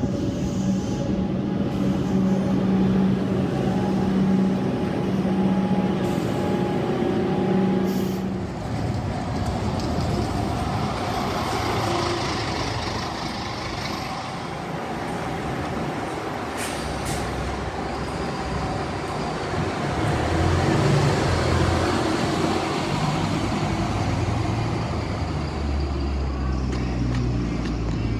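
An electric suburban train moving through the station with a steady hum for the first eight seconds or so. Then a Scania diesel city bus runs close by amid passing cars, with the hiss of air brakes.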